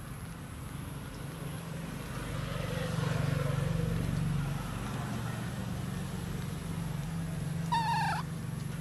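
A steady low engine hum from a motor vehicle, swelling for a couple of seconds about three seconds in as if one passes. Near the end comes a short, high, slightly falling squeak, from the baby macaque.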